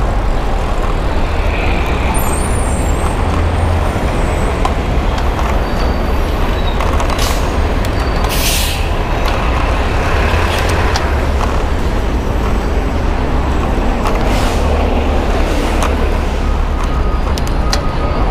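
Steady wind rumble on the microphone and traffic noise from riding a bicycle in city traffic, with two short hisses about seven and eight and a half seconds in.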